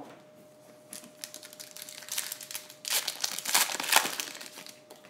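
Foil wrapper of a Topps Finest baseball-card pack crinkling as it is handled and the cards are slid out. A run of crackly crinkles starts about a second in, is loudest in the middle, and dies away near the end.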